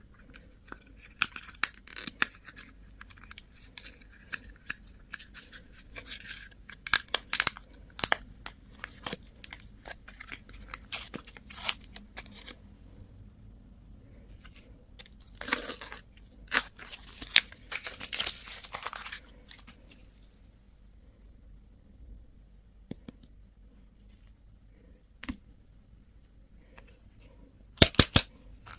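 Crinkly candy packaging being torn open and crumpled, in dense sharp crackles and short rips. It goes quieter for several seconds, with only a few ticks, before a burst of loud crackles near the end.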